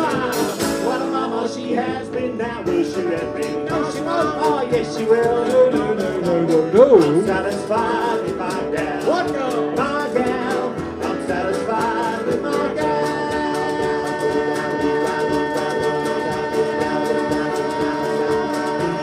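Jug band playing live: guitars, double bass and a steady scratchy percussion beat under wavering lead lines, the song's final chord held steady from about two-thirds of the way in.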